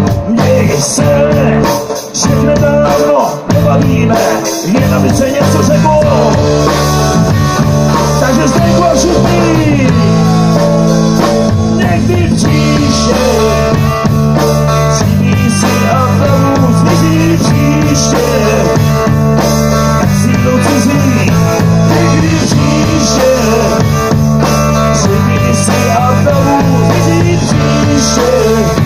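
Live rock band playing loud: electric guitar and bass over a drum kit, with a vocalist singing.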